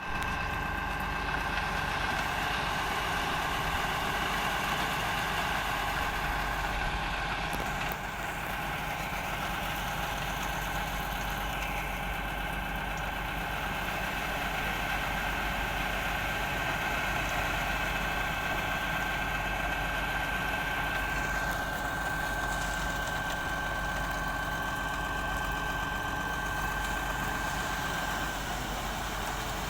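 Engine-driven construction machinery running steadily at a concrete pour, with a steady high whine over the engine that stops shortly before the end.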